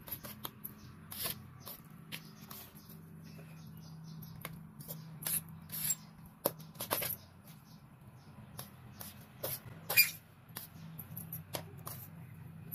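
A hand mixing cooked instant noodles with spice paste in a stainless steel plate: irregular wet squishes and clicks of fingers and noodles against the steel, over a faint low hum.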